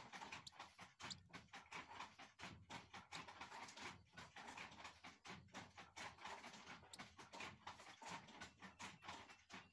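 Faint, irregular tapping and rustling as a downy hawk chick is hand-fed, its beak pecking and the food and hand brushing on the blanket.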